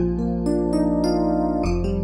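Workstation synthesizer playing a keyboard patch: melody notes struck over sustained chords and a low bass note, with the chord and bass changing near the end.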